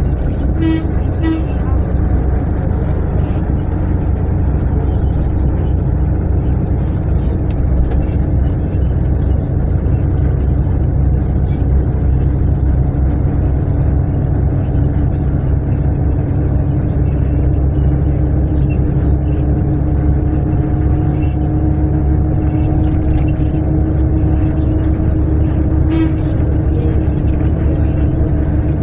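Natural-gas city bus running along the road, heard from inside the cabin: a steady low rumble of engine and road noise with a constant hum.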